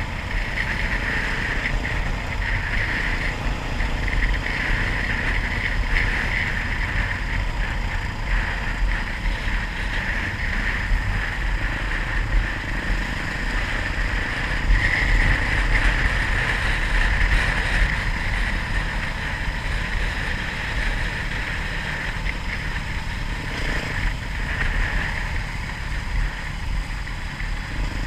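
Off-road motorcycle engine running steadily under way, its level rising and falling a little.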